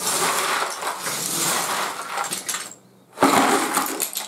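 Gypsum self-levelling floor screed being broken up and scraped off the cement base it has come away from: a continuous noisy scraping that stops briefly about three seconds in, then starts again.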